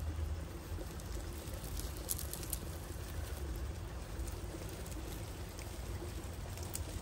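Traxxas TRX-4 Bronco RC crawler driving slowly over leaf litter and dirt: a steady low rumble with a few crackles about two seconds in and near the end, over the wash of running stream water.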